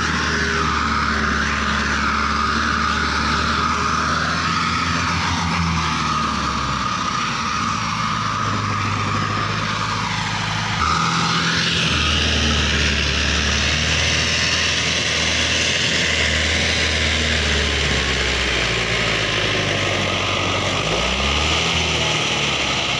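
HMT diesel tractor engine running hard, pulling a heavily loaded sugarcane trailer up a dirt slope. The engine note changes sharply about eleven seconds in and rises and falls near the end.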